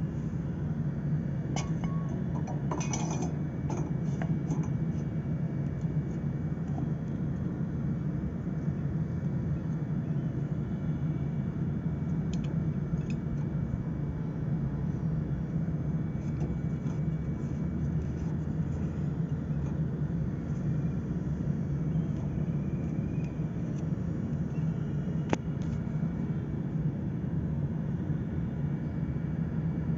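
Steady low background rumble, with a few light metallic clinks about two to four seconds in as a brass torch head is fitted to a butane gas canister.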